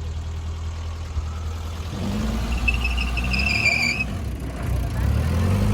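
Modified Maruti Gypsy's engine running low and steady, then revving up about two seconds in and again near the end, with a thin high whine over it while it pulls.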